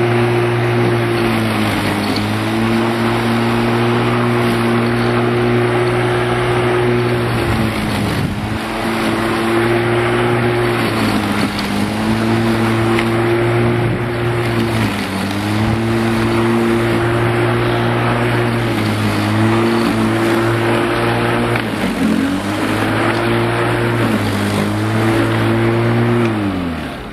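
Bosch Rotak 34R corded electric rotary mower's 1300 W motor running, its pitch dipping briefly and recovering every few seconds as the blade cuts through grass. Near the end the pitch falls away as the motor is switched off and spins down.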